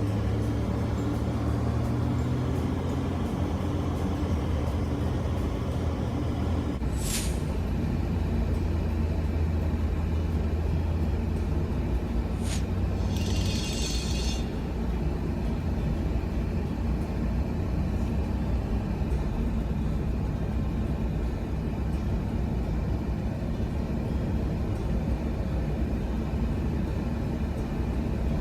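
A moving vehicle's engine and road noise as a steady low rumble. The engine note changes about seven seconds in, with a short sharp sound there and another about five seconds later, followed by a brief high hiss.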